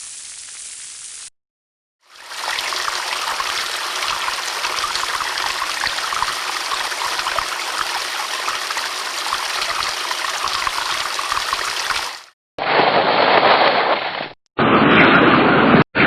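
Steady heavy rain falling as a dense, even hiss for about ten seconds, cut off abruptly. Before it there is a fainter second of hiss and a short gap. After it come two short, louder bursts of rushing noise with more low rumble, each cut off sharply.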